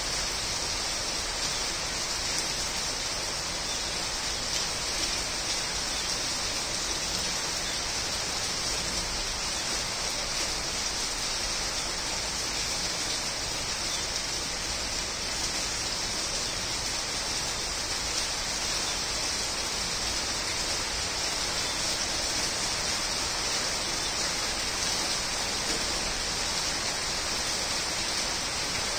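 Steady rain falling on the leaves of garden trees and shrubs: an even, unbroken hiss.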